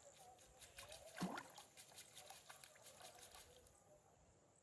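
Faint water dripping and splashing: a run of small sharp drips, one slightly louder splash about a second in, then fading to near silence near the end.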